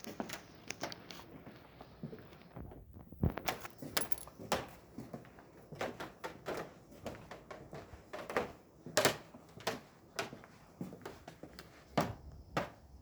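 A person moving about and handling things: irregular knocks and clicks, about one or two a second, with a few louder knocks.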